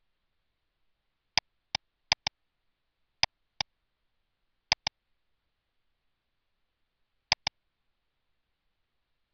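Computer mouse button clicked five times, each click a sharp pair of snaps (press and release), with silence in between.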